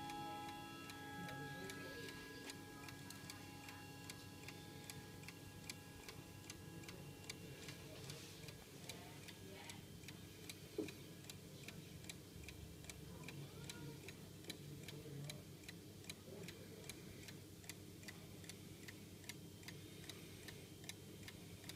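Chime rods of a mechanical mantel clock with a Hermle 340-020 movement ringing and dying away over the first few seconds, under the movement's steady ticking. One sharp click about halfway through.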